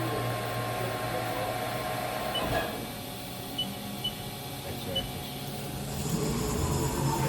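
Steady hum of machinery under power, with a low drone and hiss, and a few short high beeps around the middle.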